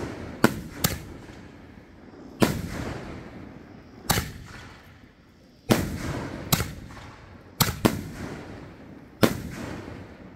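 Canister firework shells being fired in sequence: about nine sharp booms, irregularly spaced, each trailing off in a rolling echo.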